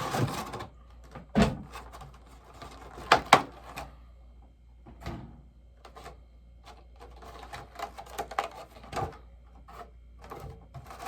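Scattered clicks, taps and knocks of a bobblehead box and its packaging being handled and opened. The loudest is a knock about a second and a half in and a quick pair of knocks just after three seconds.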